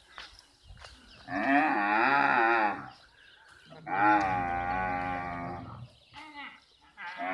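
Dromedary camels mating, one giving long, loud moaning calls with a wavering pitch. There are two calls of about two seconds each, and a third begins near the end.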